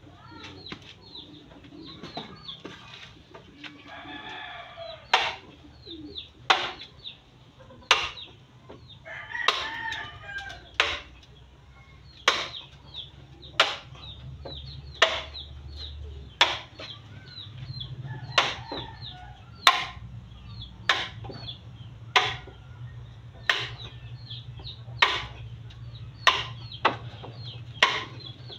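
Regular knocks about every second and a half, a hand tool striking a bamboo pole being fixed to an upright bamboo post. Chickens cluck and a rooster crows in between.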